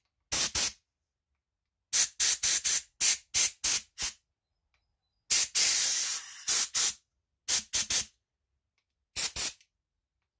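Compressed-air blow gun blowing out the jets and passages of a lawnmower carburetor to clean them: short hissing blasts in quick clusters, with one longer blast of about a second and a half a little past halfway through.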